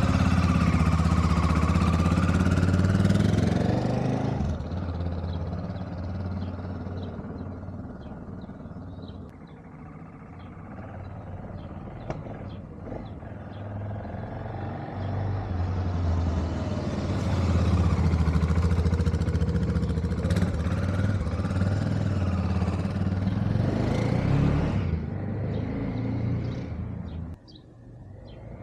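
BMW F650GS motorcycle engine running on the move, loud at first, fading after about four seconds, building again and staying loud for several seconds, then dropping away near the end.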